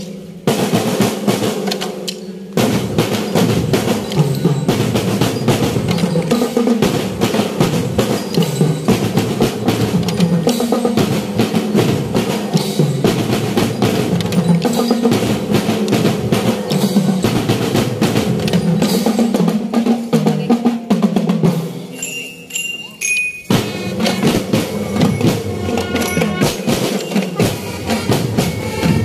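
Marching band drumline, snare and bass drums, playing a fast, loud cadence. It breaks off briefly about three-quarters of the way through, then starts again with a few high ringing notes over the drums.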